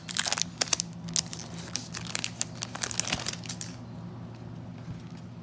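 Foil trading-card pack wrapper crinkling sharply as the cards are pulled out of it; the crinkling stops about three and a half seconds in.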